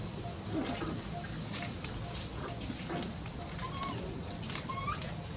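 Steady, high-pitched buzzing drone of insects, with a couple of short, faint, rising calls about four and five seconds in.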